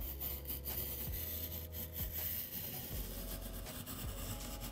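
A hand blade cutting through cardboard in repeated short strokes, about one a second, as a traced template is cut out.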